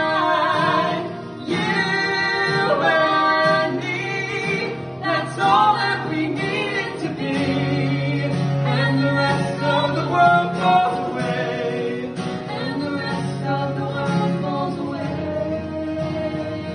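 A man and a woman singing a slow duet, with two acoustic guitars playing underneath.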